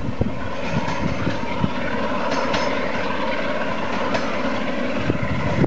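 Class 47 diesel locomotive's Sulzer engine running steadily under power as it hauls a train of Mk1 coaches away along the line, with the rumble of wheels on the rails. Wind buffets the microphone near the end.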